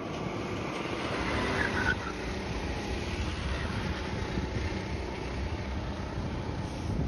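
Go-kart engines running as several karts lap the circuit, with a louder pass about two seconds in and another near the end.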